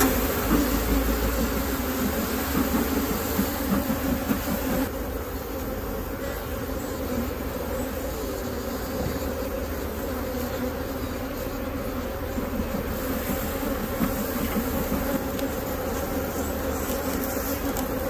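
Honeybees buzzing around an open hive in a steady, dense hum. The colony is queenless and defensive.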